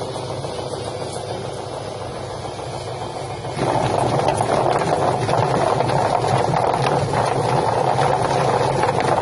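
Drum-type chicken feather plucking machine running with a steady rattle; about three and a half seconds in it suddenly gets louder and noisier and stays that way.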